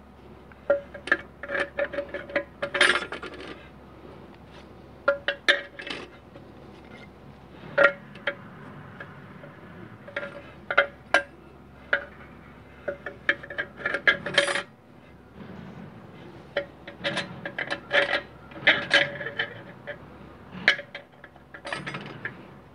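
Steel and friction clutch plates of a 700R4 low/reverse clutch pack being set by hand into the aluminium transmission case, being dry-fitted to check clearances. Irregular clusters of sharp metallic clinks and clicks, many with a brief ring, as the plates knock against each other and the case.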